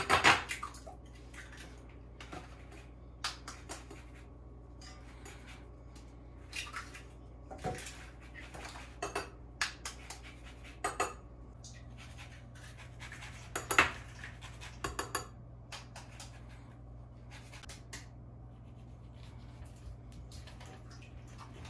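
Kitchen utensils clinking and knocking against dishes in scattered sharp clicks, some in quick little clusters, over a steady low hum.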